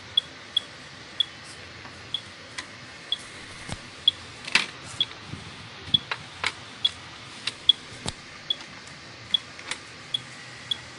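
Electronic refrigerant leak detector beeping slowly, short high beeps about twice a second, its slow rate meaning little refrigerant at the probe. A few sharp clicks and knocks from handling the probe among the AC lines come in between, the loudest a little after four seconds and around six and eight seconds.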